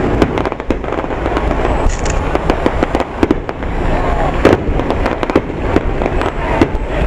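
Aerial firework shells bursting overhead, with a string of sharp, irregular bangs and crackles from the exploding stars over a continuous low rumble.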